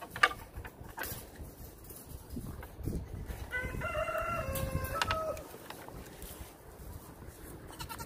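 A rooster crows once, a long call of about two seconds starting about three and a half seconds in. Just before that there is a single sharp knock.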